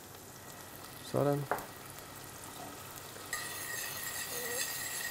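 Brown butter sauce with chopped onion, hazelnuts and freshly added soy sauce sizzling in a saucepan while it is stirred with a spoon. The sizzle gets a little louder about three seconds in.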